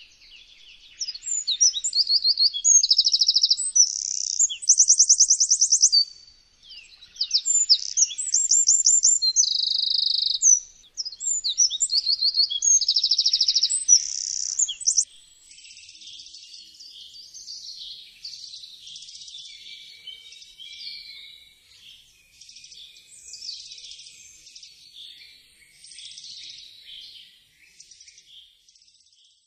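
Eurasian wren singing: three loud, fast outpourings of high trills and warbles, each several seconds long, followed by fainter, scratchier song for the second half.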